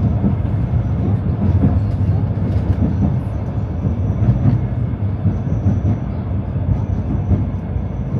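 Tram running along its rails, a steady low rumble of wheels and motors with faint scattered clicks and an on-off thin high whine.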